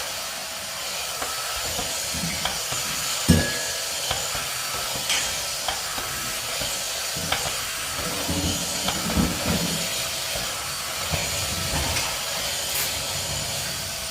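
Vacuum cleaner motor running steadily with a hissing rush of air, broken by a few light knocks and clicks as it is handled.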